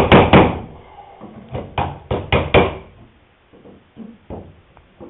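A chisel being driven into a wooden rail by quick mallet blows, trimming it to fit. It sounds as runs of sharp wooden knocks, about four a second: a few at the start, a second run in the middle, then a few fainter taps near the end.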